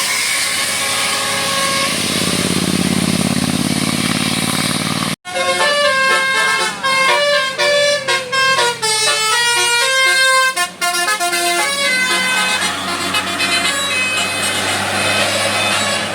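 Indonesian bus 'telolet' Basuri musical air horn playing a quick tune of stepping notes, several tones sounding together, for about six seconds. Before it there is steady engine and road noise that breaks off abruptly about five seconds in.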